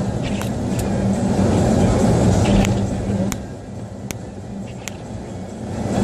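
A car's engine and tyres running on a snowy road, heard from inside the cabin. It goes quieter for a couple of seconds past the middle, with a few sharp clicks.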